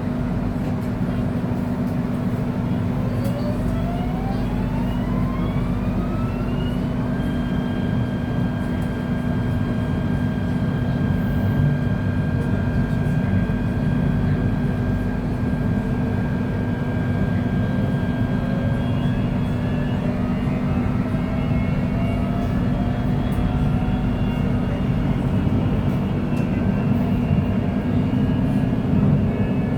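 KTM Komuter SCS electric multiple unit running, with its traction motors and inverter whining over a steady low hum and rumble. The whine rises in pitch for a few seconds as the train accelerates, then holds one steady pitch. About two-thirds of the way through, a new set of tones starts rising slowly.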